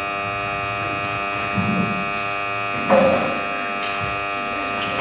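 Electric ceiling fan running with a steady buzzing hum, with two brief louder sounds, the stronger about three seconds in.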